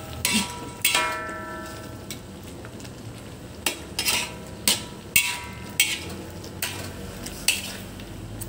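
A utensil stirring boiled shrimp in a metal pot, clinking against the pot about ten times at an uneven pace, each knock ringing briefly.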